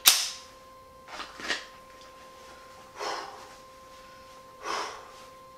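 A single 9mm +P pistol shot from a TriStar T120, fired point-blank into a bulletproof jacket being worn, right at the start. A man's heavy, sharp breaths follow, four of them over the next few seconds, as he recovers from the hit.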